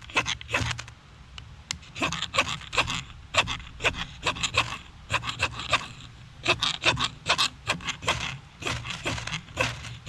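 Rapid repeated scraping strokes of a spark-throwing fire striker, about two to three a second with a short pause about a second in, showering sparks onto a pile of wood scrapings and shavings that blackens but will not catch.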